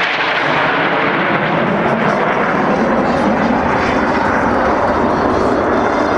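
Loud, steady jet engine noise from the Blue Angels' F/A-18 Hornets in flight.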